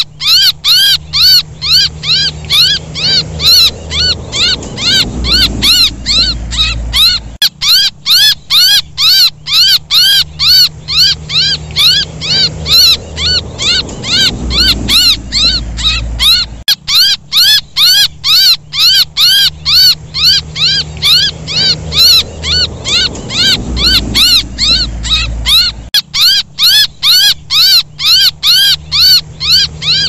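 Bird-lure recording of a young bird's distress calls: rapid, high, arching chirps, each rising then falling, about three to four a second without pause. The same stretch repeats about every nine seconds over a low rumble that swells and fades.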